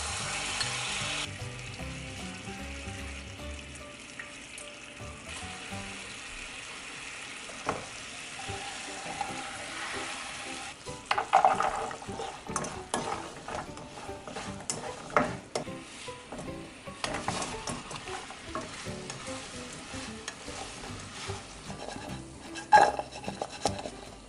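Sugar syrup sizzling and bubbling in a hot nonstick frying pan, a louder hiss for the first second as it goes in. From about eleven seconds in, a wooden spatula stirs walnuts and Spam cubes through the syrup, knocking and scraping against the pan.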